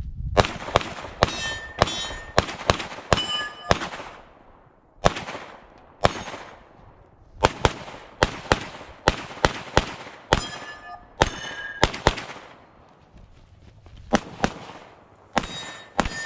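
A shooter's string of gunfire during a match stage: about two dozen shots in quick bursts with short pauses between. A few shots are followed by a brief metallic ring from struck steel targets.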